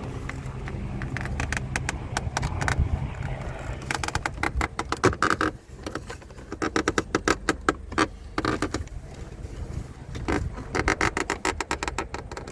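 Several bursts of rapid clicking and rattling, plastic and metal, as dashboard trim parts and tools are handled and worked loose. A steady low hum runs under the first few seconds.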